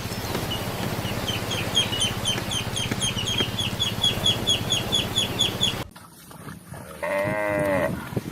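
A rapid series of short, high bird chirps, about four or five a second, over background noise. After a cut, a single wavering bleat from a sheep or goat comes near the end.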